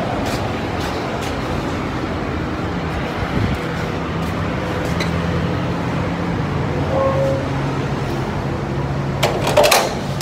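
Steady low motor hum, with a brief burst of clattering about nine seconds in.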